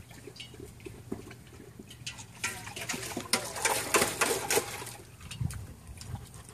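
German Shepherd lapping water from a steel pot: a quick, splashy run of laps starting about two and a half seconds in and lasting around two seconds.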